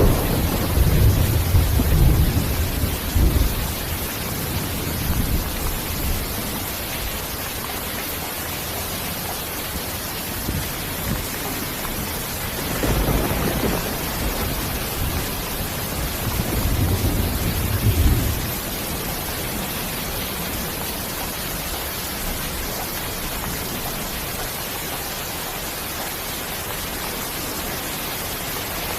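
Steady rain with two low rolls of thunder, one in the first few seconds and another from about 13 to 18 seconds in.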